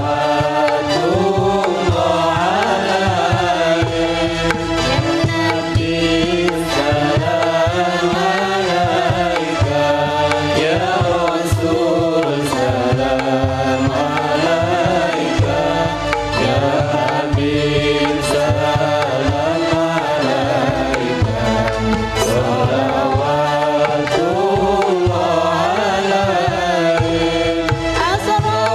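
Islamic devotional song (sholawat) with a sung, ornamented melody over steady hand-drum playing.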